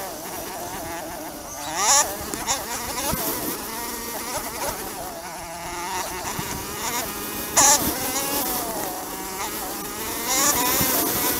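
Dirt bike engine running under the rider, its revs rising and falling as it rides along a rough dirt track, with a buzzy tone and two short loud bursts along the way.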